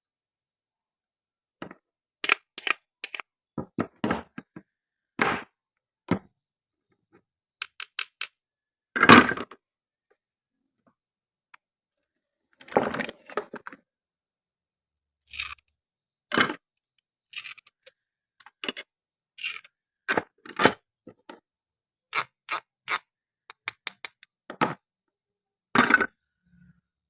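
Plastic and wooden toy fruit and vegetables being handled and cut with a toy knife: scattered sharp clicks and taps, with a couple of longer scrapes about nine and thirteen seconds in.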